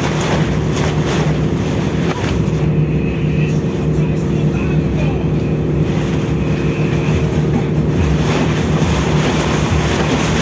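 Steady low drone of a ship's machinery, a constant hum with a noisy rush over it, unchanging throughout.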